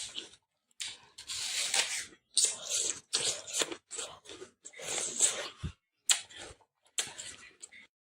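Crisp apple being bitten and chewed: a run of irregular wet crunches, some short and some drawn out over a second or so, with brief pauses between them.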